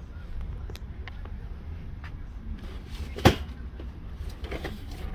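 Handling noise: a few light clicks and one sharp knock about three seconds in, over a low rumble.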